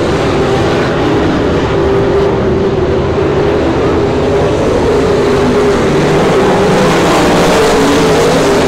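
A pack of dirt-track super stock race cars running at racing speed, several engines overlapping in a loud, steady drone that wavers in pitch as the cars go around the oval.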